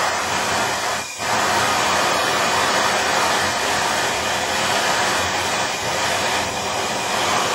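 Handheld gas soldering torch burning with a steady hiss, heating the brass fitting on a shower valve so the solder will flow; the flame dips briefly about a second in.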